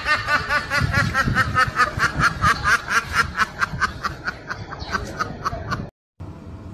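A duck quacking rapidly and without pause, about five short quacks a second in one long run that breaks off suddenly near the end.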